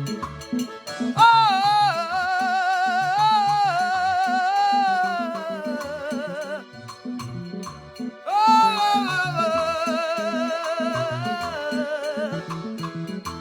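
Gospel worship music: a high solo voice sings long held notes with wide vibrato in two phrases, the first about a second in and the second near the middle, over a steady rhythmic backing with percussion and bass.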